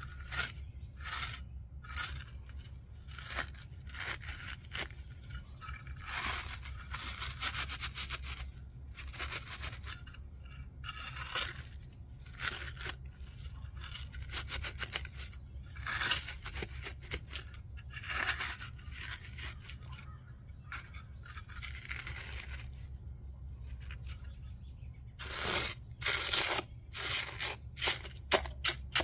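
Wooden boards scraping and rubbing against gravel and dirt as they are shifted into place, in irregular strokes. Near the end comes a quicker, louder run of scrapes as a hand trowel works the soil beside the board. A steady low hum lies underneath.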